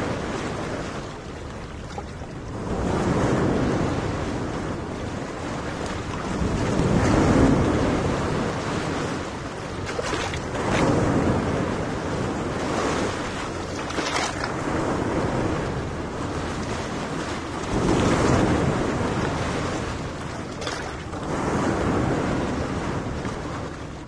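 Small waves washing onto a sandy beach, the surf swelling and fading every few seconds, with wind buffeting the microphone.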